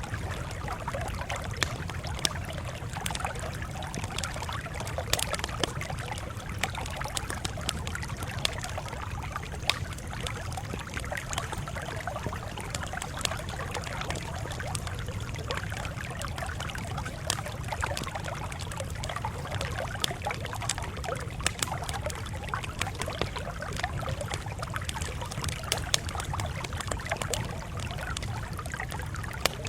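Wood fire crackling, with frequent irregular sharp pops over a steady low rumble.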